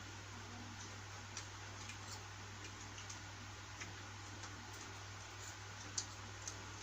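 Faint, irregular small clicks and ticks over a steady low hum and hiss, with one sharper click about six seconds in.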